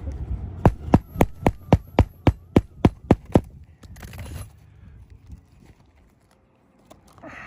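A quick run of about a dozen sharp, evenly spaced taps, roughly four a second, from a hand tool working on an asphalt shingle roof while the nails are worked loose under a lifted shingle; then faint scraping and rustling.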